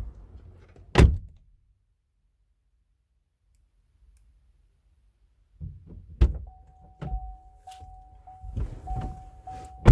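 Car door of a Vauxhall Insignia shut with a loud thunk, then after a pause the door is opened and there is rustling as someone gets in, while a steady warning tone chimes with short breaks. The door is shut with another loud thunk at the end, and the chime stops with it.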